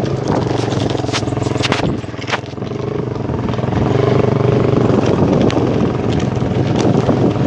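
Hero Honda Karizma ZMR motorcycle's single-cylinder engine running while riding off-road, easing off briefly about two seconds in, then pulling louder from about four seconds. A few sharp knocks come in the first two and a half seconds.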